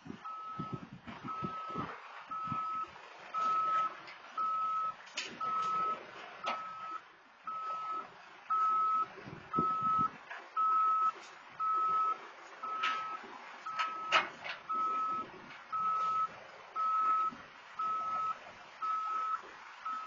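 Backhoe loader's reverse alarm beeping about once a second as the machine backs down the trailer ramps, over the low rumble of its running engine. A few sharp knocks are heard, the loudest about fourteen seconds in.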